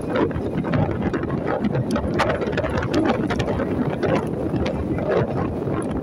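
Wind buffeting the microphone of a moving rider in uneven gusts, over a steady rumble of vehicle and road noise.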